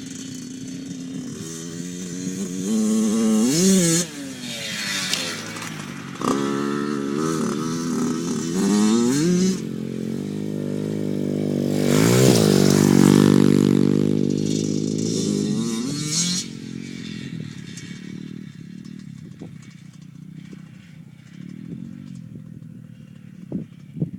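Dirt bike engine accelerating in bursts of throttle, its pitch climbing through the gears, then passing close about halfway through with a drop in pitch and fading away.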